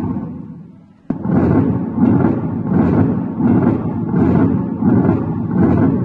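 Recorded heart sounds of an atrial septal defect, played through a stethoscope, beating about 85 times a minute. One recording fades out in the first second, and another starts abruptly about a second in.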